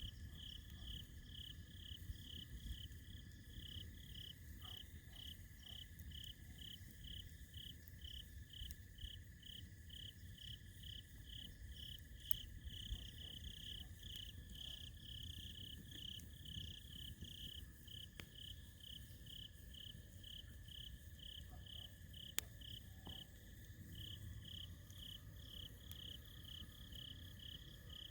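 Crickets chirping in an even rhythm, a little over two chirps a second, with a steady faint tone underneath. A wood campfire gives occasional faint crackles and one sharp pop a little past the two-thirds mark.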